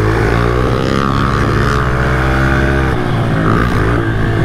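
Honda CRF110 pit bike's single-cylinder four-stroke engine running hard under throttle, with a fairly steady pitch that shifts slightly about three seconds in.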